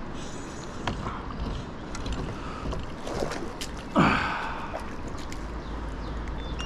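A hooked fish thrashing at the surface beside a kayak, with one loud splash about four seconds in and a few sharp clicks before it.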